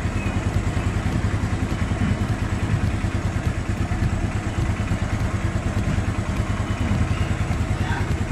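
Yamaha Mio Sporty's single-cylinder four-stroke engine idling steadily while the idle speed is set with the idle-adjust screw, its valve clearances freshly adjusted.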